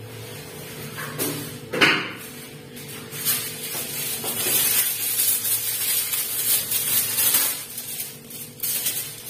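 Aluminium foil over a baking dish crinkling and crackling as it is handled, after a single knock about two seconds in.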